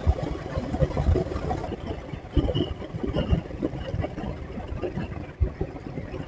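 Motorcycle riding at road speed: wind buffeting the microphone in uneven gusts over a faint engine hum and road noise, with a few sharper gusts.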